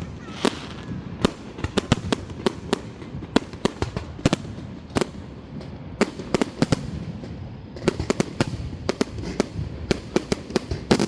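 Fireworks display: a rapid, irregular string of aerial shell bursts, many sharp bangs in quick clusters with their echoes rolling between them.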